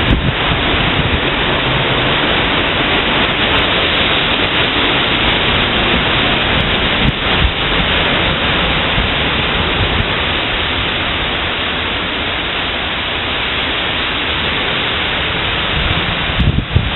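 Heavy thunderstorm downpour: a steady, loud hiss of rain pouring onto the road, paving and vegetation.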